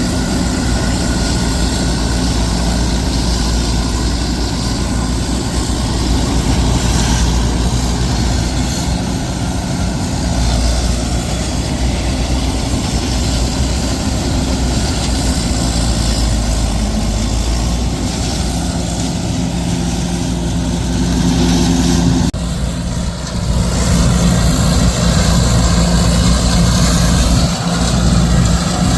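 Heavy diesel farm-machinery engine running steadily under load. It dips briefly about 22 seconds in, then comes back a little louder.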